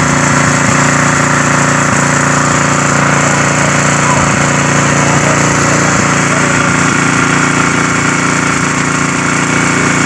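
Engine of a portable welding plant running steadily at a constant speed, a level drone that does not change.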